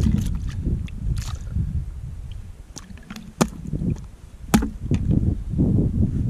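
Two sharp knocks about a second apart: a wooden club striking a freshly netted fish on the ice to stun it. A steady low rumbling noise runs underneath.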